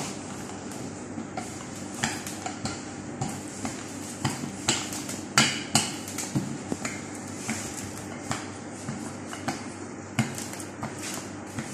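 A rolling pin working a sheet of dough on a stainless-steel worktop, with irregular knocks and clatters as the pin and dough hit the metal, over a steady low hum.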